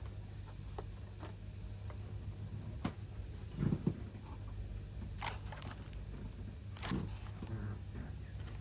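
Quiet indoor room tone: a steady low hum with a few scattered soft clicks and knocks, the most noticeable about a third of the way in and again near the end.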